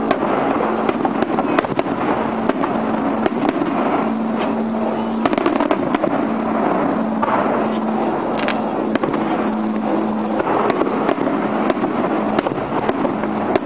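Aerial fireworks going off: a steady run of sharp bangs and crackles from bursting shells, irregularly spaced, over a continuous noisy rumble. A steady low hum comes and goes underneath.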